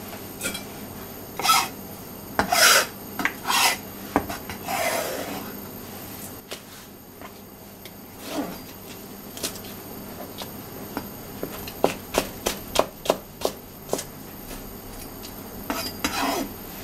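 Kitchen knife scraping across a cutting board in several strokes, then a quick run of chopping strokes on the board, about three a second, as it cuts lettuce leaves; another scrape near the end.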